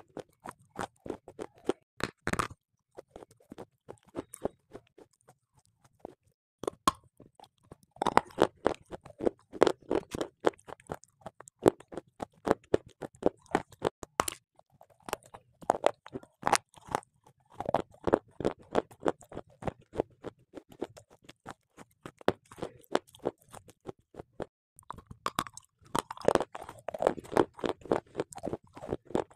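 A person biting and chewing a hard, chalk-like block close to the microphone. Spells of dense crunching alternate with a few quieter pauses.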